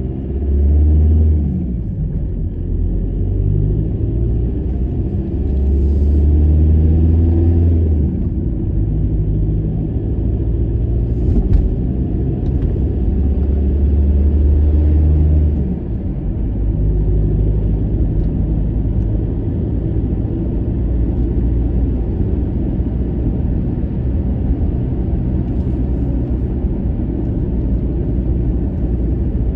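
Volkswagen Passat 1.9 TDI four-cylinder turbodiesel running on the road, a steady low rumble of engine and tyres heard from inside the cabin, swelling louder a few times.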